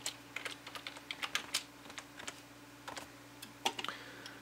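Typing on a computer keyboard: irregular keystrokes, thinning out near the end, over a faint steady low hum.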